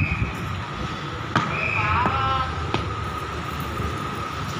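Motorised pesticide sprayer running steadily: a low engine hum with a thin high whine from the pump. A sharp click comes about a second and a half in, with a few brief chirps just after it.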